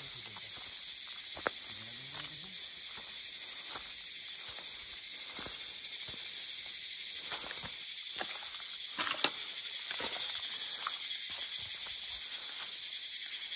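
Insects droning steadily in a high-pitched, unbroken buzz, with scattered faint clicks and one sharper click about nine seconds in.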